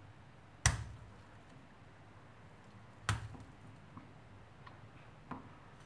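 Two sharp metallic clicks, about two and a half seconds apart, then a couple of fainter ticks, as a wire circlip is worked by hand into the gudgeon-pin groove of a two-stroke scooter piston.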